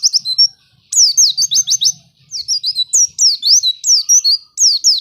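White-eye (pleci) song: rapid runs of high, quickly sliding chirps, in several phrases with short breaks between them.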